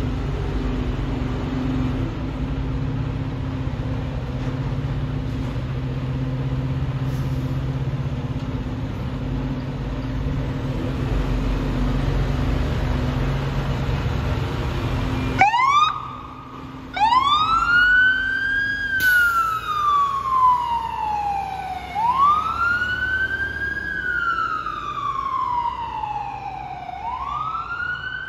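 A fire engine's diesel engine runs with a steady low rumble for about the first fifteen seconds. Then, after an abrupt change, the fire engine's siren wails on a code 3 response. Each wail rises quickly and falls slowly, repeating about every three seconds.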